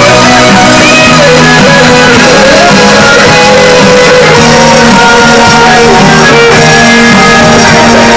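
Live band music played loud through PA speakers, with electric guitar and bass guitar over a steady beat.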